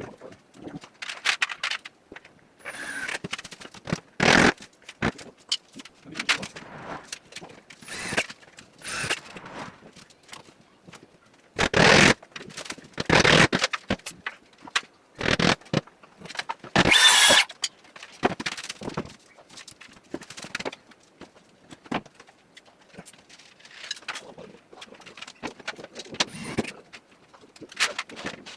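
Carpentry site work: short, irregular bursts of power-tool noise and knocks on wood, with a brief high squeal about two-thirds of the way through.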